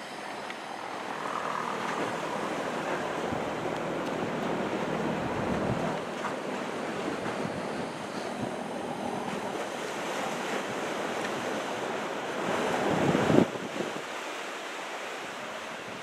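Typhoon-driven surf washing against the shore, mixed with wind buffeting the microphone as a steady rushing noise. Near the end a louder rush builds and cuts off sharply.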